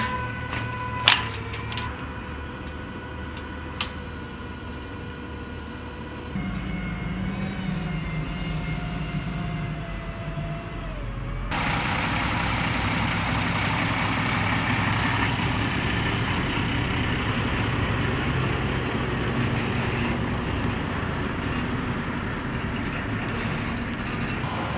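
Diesel articulated lorry hauling a shipping container: its engine hums, then about halfway through the sound swells into steady engine and road noise as it pulls away across the yard. Two sharp knocks sound in the first few seconds.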